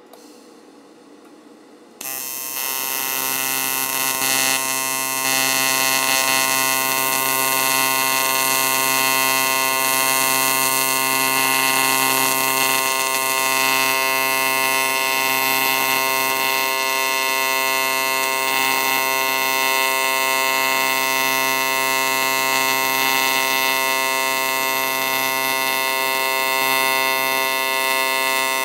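AC TIG welding arc on cast aluminum, struck about two seconds in, then a steady buzz with a hiss over it.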